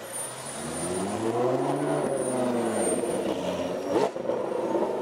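Ferrari F12berlinetta's V12 and a Lamborghini Gallardo's V10 driving past at low speed, the engine note rising and then falling as they go by. About four seconds in there is a sudden, sharp rev.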